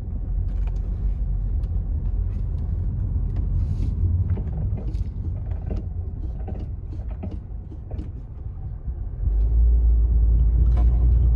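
Car driving, a steady low rumble with scattered knocks and clicks, the rumble growing louder about nine seconds in.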